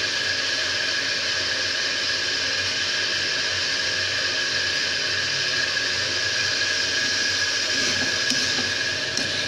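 Steady hiss of cauliflower sizzling in hot oil in a metal kadai, with a thin steady tone running through it. A couple of light clicks come near the end.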